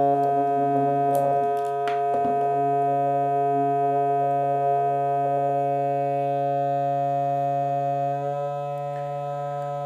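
Small loudspeaker playing a steady pure test tone of about 140 Hz from a tone generator, sounding buzzy with many overtones. It dips slightly in level about eight seconds in, as the frequency is being changed.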